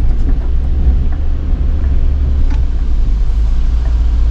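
Vehicle driving along a soft sand track: a steady, loud low rumble of engine and tyres.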